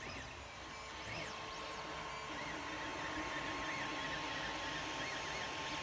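FDM 3D printer printing: stepper motors give several quick rising-and-falling whines in the first second and a half, then a steadier, wavering whine over the steady hiss of the cooling fans.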